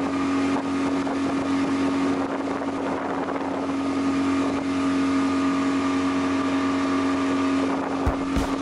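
A fishing boat's engine running steadily underway, a constant droning hum over the rush of wind and water. Sharp repeated beats come in near the end.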